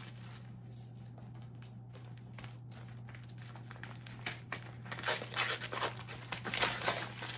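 Shiny gold wrapping paper crinkling and rustling in the hands as a gift is unwrapped. The crackling starts about four seconds in and comes in quick irregular bursts, over a faint steady low hum.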